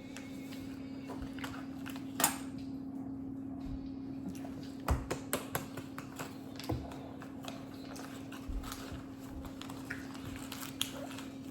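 Kitchen utensils clinking and knocking against dishes: a sharp clink about two seconds in and a quick run of knocks around five seconds in, over a steady low hum.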